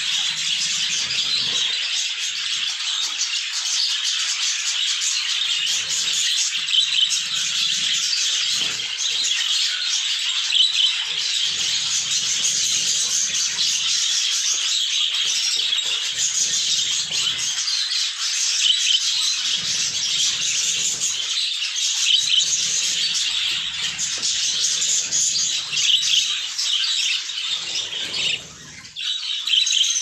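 Budgerigars chirping and squawking in a dense, unbroken high-pitched chatter.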